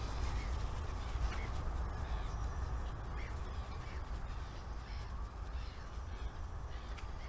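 Crows cawing faintly over a steady low background rumble.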